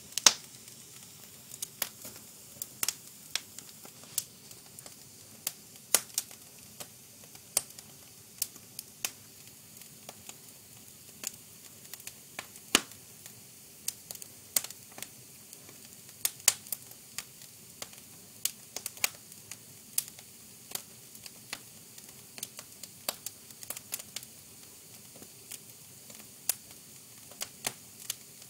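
Fire crackling, with irregular sharp pops and snaps, some much louder than the rest, over a steady low hiss.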